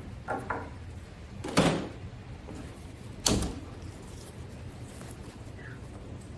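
Handling noises from a scooter wheel being flipped over on the work surface: a scrape about one and a half seconds in and a sharp knock just after three seconds.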